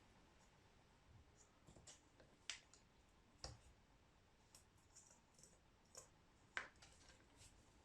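Faint, scattered clicks and taps of small parts being handled, such as a washer being fitted onto a heat gun's fan shaft, with near silence between them.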